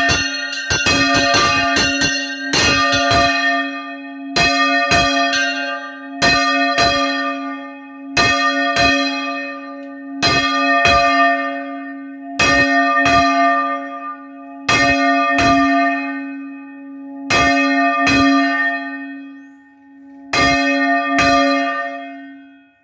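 Church bells swung in full rotation in the Valencian volteig style. For the first few seconds several bells strike thick and fast; from about four seconds in, a single bell goes on striking in pairs, with its hum carrying between the strokes. The pairs come further and further apart as the bell slows to a stop, and the ringing fades out at the end.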